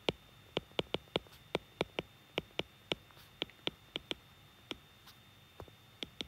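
Stylus tip tapping on a tablet's glass screen while handwriting: a run of sharp, irregular clicks, about three a second, with a short pause near the end.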